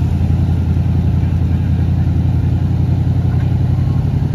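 A 1977 Chevrolet 3/4-ton pickup's engine idling steadily with a low, even rumble.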